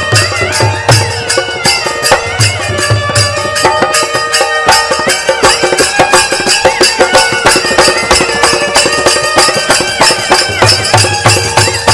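Instrumental passage of Sikh kirtan: stringed instruments play a gliding melody over a steady drone, with fast hand-drum strokes and deep drum beats keeping the rhythm.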